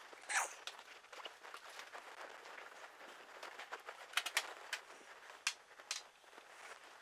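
Faint kitchen handling sounds: scattered light clicks, clinks and knocks of someone putting things into a refrigerator and moving glass prep bowls on a counter. There is a brief sharper clink under a second in and a quick cluster of clicks about four seconds in.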